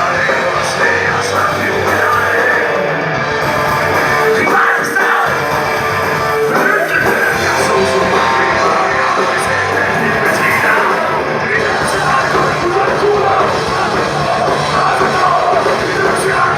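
Rock band playing heavy music live at high volume, with a dense, unbroken wall of sound and cymbal crashes throughout.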